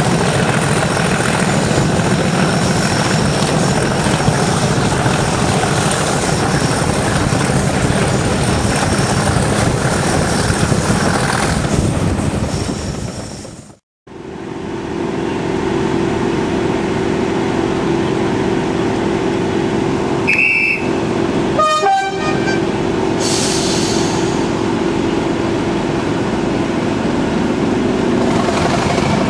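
Class 37 diesel locomotive 37254 working hard, its English Electric 12CSVT V12 engine running under power with rail noise, heard from an open carriage window. After a sudden cut about halfway through, the engine runs on with a steady hum, and a few brief high-pitched sounds come a few seconds later.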